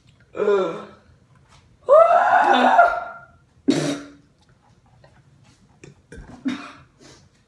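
Boys gagging and retching over a bowl after drinking a disgusting mixture. A short retch comes first, then a long, loud, strained gag about two seconds in, a sharp cough-like heave just before four seconds, and a weaker one near the end.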